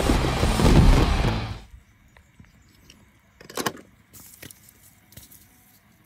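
Loud cartoon soundtrack from an arena scene that cuts off suddenly about a second and a half in. After it, mostly quiet, with a few light knocks and small splashes as toy cars and pom-poms are moved about in shallow water.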